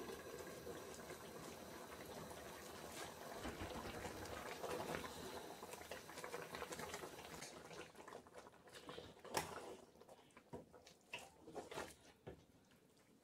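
Pot of ogbono soup boiling and bubbling, with a wooden spoon stirring it; after about eight seconds the bubbling drops away and scattered clicks of the spoon knocking the metal pot are heard.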